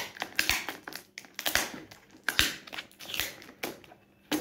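Fingers picking and scratching at the sealing strip on the lid of a chocolate tub, giving irregular crackles, clicks and scrapes. The seal is stuck and the lid won't come open.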